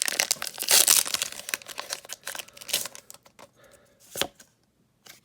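Foil wrapper of a Pokémon card booster pack being torn open and crinkled, loudest in the first second and fading out, followed by a single sharp click about four seconds in.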